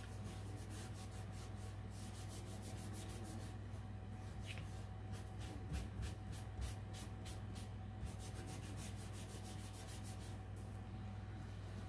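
Paper towel wrapped around a fingertip rubbing quickly back and forth over oil pastel on paper, a light scratchy scrubbing of many short strokes, smoothing and blending the pastel colour.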